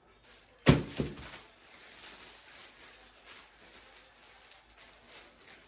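Clear plastic wrapping crinkling and rustling as a fishing rod is pulled out of its sleeve. A sharp knock comes under a second in, followed by a smaller one.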